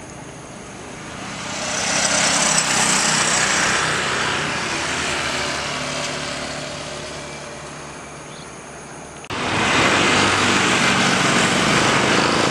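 An AirAsia jet airliner's engines rise to a peak and then fade as it passes along the runway. About nine seconds in, a sudden cut brings in a second jet airliner's engines, louder and steady, on its takeoff roll.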